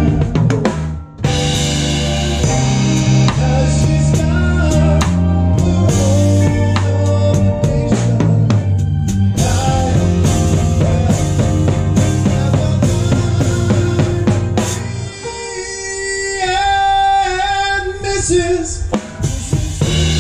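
Live band music driven by a drum kit: kick drum, snare and cymbals over a full band. A short break comes about a second in, and from about three-quarters of the way through the low bass drops out for a few seconds, leaving drums under a higher melodic line, before the full band comes back in.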